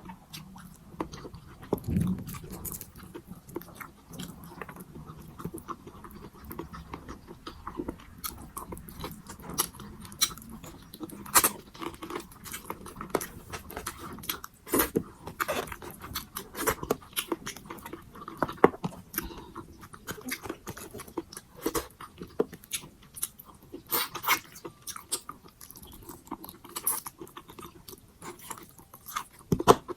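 A person chewing pork sinigang close to the microphone, with frequent sharp mouth smacks and crunches of several a second and no talking.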